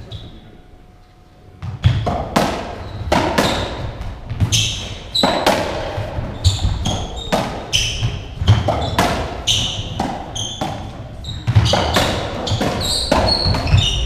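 A racketball rally: the ball cracks off rackets and smacks against the walls and wooden floor about twice a second, with rubber shoe soles squeaking on the court floor between shots. The first second and a half is quiet before the serve, then the impacts run on steadily.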